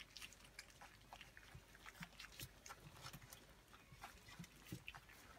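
Litter of young puppies eating from a metal food tray: faint, scattered little clicks and mouth noises.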